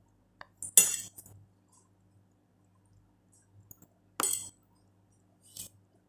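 Metal fork clinking and scraping against a ceramic plate while eating noodles: a few short, sharp clinks with a brief ring, the loudest about a second in and another about four seconds in.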